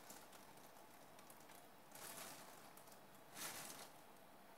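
Near silence, with two faint, brief rustles about two and three and a half seconds in: a lemon half being squeezed by hand in thin plastic gloves over a salad bowl.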